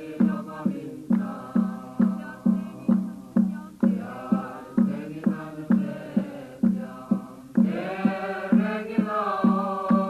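Choir singing over a steady drum beat of about two strokes a second; the voices swell fuller about eight seconds in.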